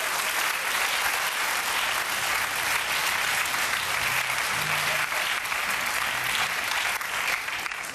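Studio audience applauding steadily for several seconds, with faint music underneath.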